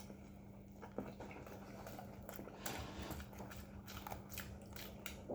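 Faint eating sounds: scattered soft clicks and mouth noises of someone chewing a bite of chicken burger, over a low steady hum.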